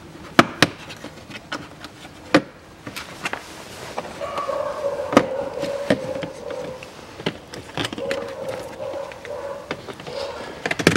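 Plastic clips and trim of a car dashboard's side panel clicking and snapping as the panel is pulled off by hand, an irregular string of sharp clicks. A wavering buzzing tone joins about four seconds in.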